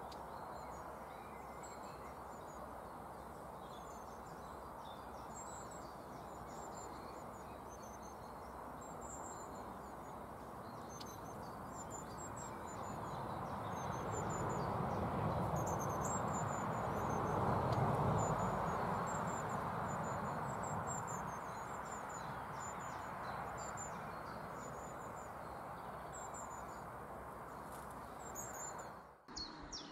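Long-tailed tits giving many short, thin, high-pitched calls over a steady low rushing background that swells and fades about halfway through; the sound breaks off briefly near the end.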